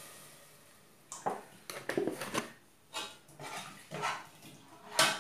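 Metal spoon stirring milk and vermicelli in a steel saucepan, scraping and knocking against the pan in short strokes about once a second. At the start, a hiss from the milk on the hot pan dies away.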